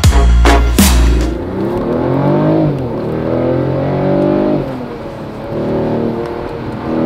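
Mercedes-Benz E450's 3.0-litre six-cylinder petrol engine accelerating. Its pitch climbs and falls back twice as it shifts up, then rises more gently near the end. Beat music with heavy bass plays for about the first second.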